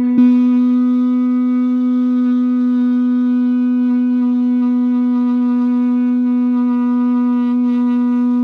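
A long curved shofar blown as one loud, steady held note at a single low pitch, rich in overtones, with a brief catch in the tone just after it starts.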